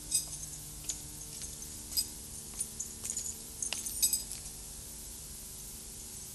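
A scatter of short, sharp, light clinks and clicks of glass or metal, about a dozen in the first four and a half seconds, the loudest near the start, at about two seconds and about four seconds, over a steady faint hum.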